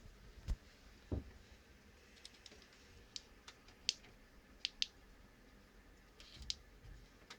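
Computer hardware being handled: scattered light clicks and taps, with two dull knocks in the first second and a half.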